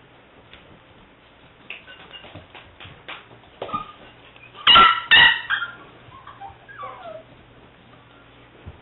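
English springer spaniel puppy giving two loud yipping barks in quick succession about halfway through, followed by a few soft, falling whimpers. Faint taps come before the barks.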